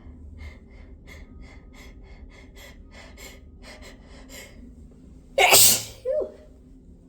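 A person's rapid, catching in-breaths, about four a second, build up for several seconds. About five and a half seconds in comes one loud, induced sneeze, followed at once by a short breathy sound.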